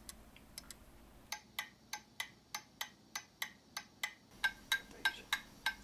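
German chiming mantle clock movement ticking evenly, about three to four ticks a second, its escapement running freely now that the pallets no longer drop too deep into the escape wheel teeth. The ticks start faint about a second in and grow louder and sharper about four seconds in.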